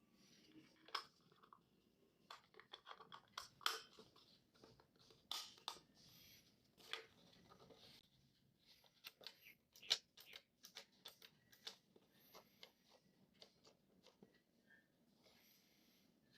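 Hands handling an FPV radio transmitter and its packaging: a quiet run of scattered small clicks, taps and crinkles.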